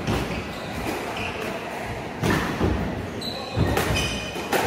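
A squash rally: the ball cracks off rackets and walls a few times, each hit sharp and echoing in the court, with short high squeaks from shoes on the wooden floor near the end.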